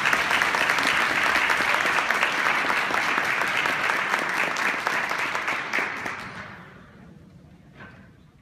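Audience applauding, the clapping dying away about six to seven seconds in.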